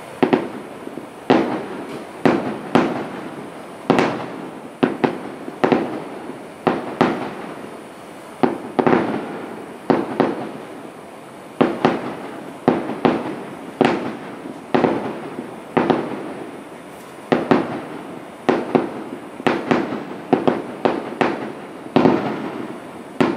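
Aerial firework shells bursting in a rapid series of sharp booms, about one to two a second with some coming in quick clusters, each boom trailing off before the next.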